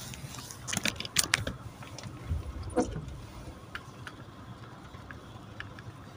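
Low, steady rumble inside a car, with a quick cluster of sharp clicks about a second in and a few faint ticks later.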